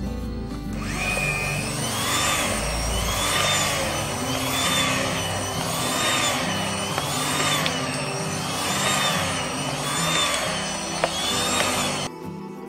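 Electric hand mixer (Maspion) kneading stiff donut dough with its dough hooks while margarine is being worked in. The motor starts about a second in, and its whine rises and falls about once a second as the hooks churn. It cuts off suddenly near the end, with background music underneath throughout.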